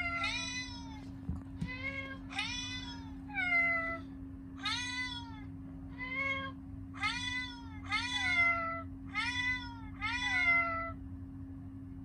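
A cat meowing over and over, a string of short meows about one a second, each rising then falling in pitch, over a steady low hum.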